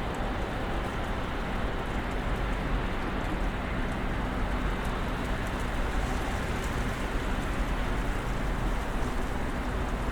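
Snowstorm ambience: a steady rushing noise with a low rumble underneath and faint scattered light ticks.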